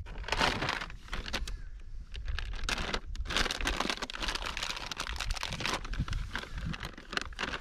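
Candy wrapper crinkling as it is unwrapped by hand: a dense, irregular run of sharp crackles.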